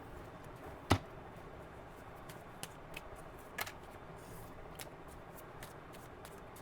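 Tarot cards being handled and laid down: scattered light clicks and taps, with one sharp tap about a second in and another a few seconds later.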